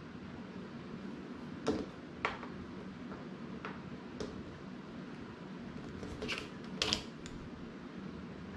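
Light taps and clicks of cut fabric, tailor's chalk and a wooden ruler being handled on a wooden tabletop, about half a dozen in all, the loudest two a little over six seconds in, over a steady low hum.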